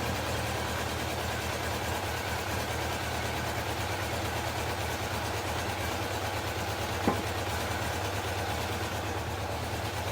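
Honda CB750 F2's air-cooled inline-four engine idling steadily with no popping, its misfire cleared. A single sharp click about seven seconds in.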